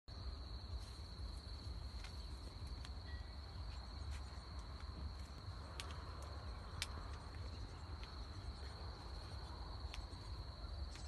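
Crickets chirring steadily in one high, unbroken tone, over a low rumble, with a few faint clicks.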